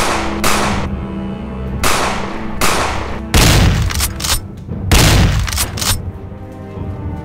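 Gunshot sound effects in a rapid string, about half a dozen loud shots with sharper cracks among them near the middle, over a film score of sustained notes.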